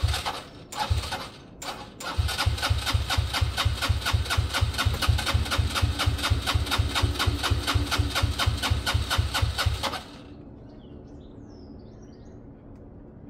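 Benelli Velvet scooter engine being cranked on its electric starter: two short stabs, then a long crank of about eight seconds with even, rapid compression pulses, stopping abruptly without the engine catching. It is being cranked with no air filter fitted and the intake partly covered as a makeshift choke.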